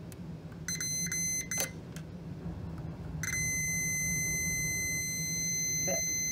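Multimeter continuity beeper sounding as the probe touches a tube-socket terminal, signalling a closed circuit. It stutters in short broken bursts about a second in, then holds a steady high beep from about halfway through.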